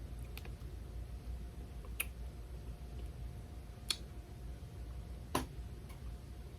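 Scattered small handling clicks, about five sharp ticks spaced a second or so apart, over a low steady room hum.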